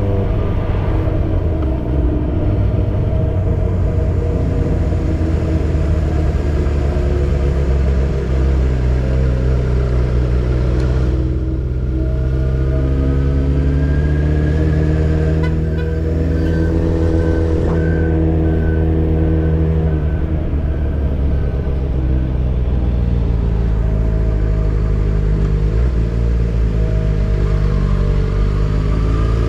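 Yamaha XJ6's 600 cc inline-four, breathing through a Dominator GP full exhaust system with its dB killer in, running under way while riding. Engine pitch climbs and bends with the throttle in the middle stretch, then settles.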